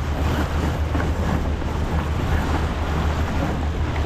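Steady wind buffeting the microphone, with water rushing along the hull of a sailing yacht under way.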